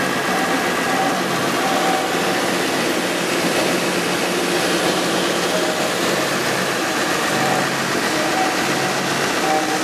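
A battering and breading machine running: a steady mechanical hum and hiss from its motors and conveyor, with brief faint high tones coming and going.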